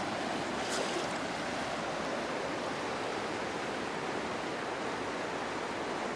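Shallow river water running steadily over rocks and gravel, an even hiss of moving water, with one faint click about a second in.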